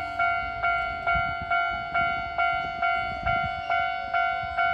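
Japanese level-crossing warning bell ringing steadily at about two strikes a second, each strike ringing out. A faint lower tone glides slowly down in pitch beneath it.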